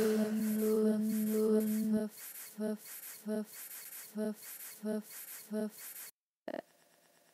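Electronic music: a held synth drone over a fast ticking beat, which about two seconds in turns into short pulsed notes roughly every 0.7 seconds, then cuts off abruptly near the end.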